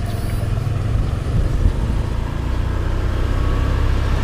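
Motor scooter being ridden along a road: a steady low rumble of engine and wind on the microphone, with no sudden events.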